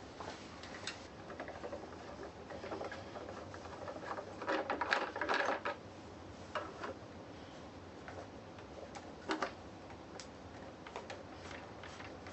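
Hand work on a small plastic-shelled electric unicycle: scattered clicks, taps and scraping of plastic parts and small hardware being handled, busiest about five seconds in, with a single sharp click a few seconds later.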